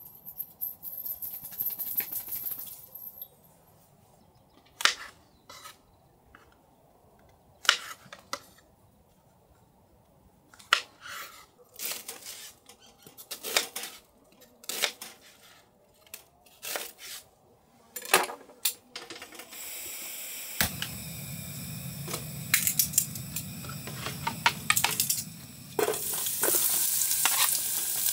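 Cooking sounds: utensils and dishes knocking and clinking in separate taps, then a steady hiss starts about two-thirds of the way through and grows into food sizzling in a pan near the end.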